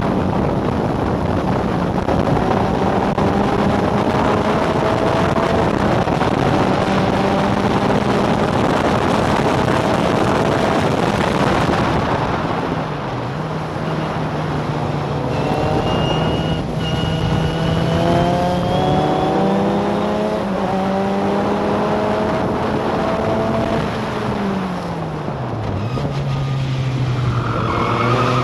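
Onboard sound of a historic formula racing car's engine driven hard, with heavy wind rush over it. The engine note climbs for the first dozen seconds, then drops under braking and holds steadier. Near the end it falls sharply as the car slows for a corner, then rises steeply as the driver accelerates out.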